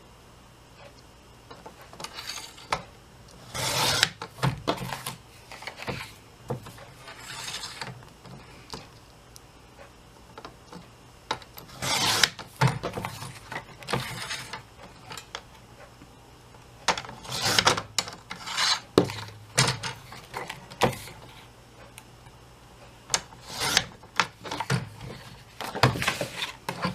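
Paper trimmer's blade sliding through printed paper in a series of short rasping strokes, with small clicks and knocks as the paper is repositioned between cuts.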